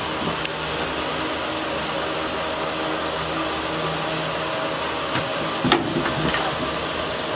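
Steady whir of an electric fan running, with a few short clicks and knocks about five to six seconds in as a clear plastic jar is picked up and handled.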